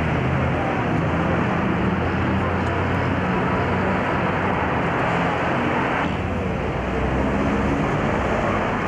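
City street traffic noise: a steady rush with the low hum of vehicle engines, changing abruptly about six seconds in.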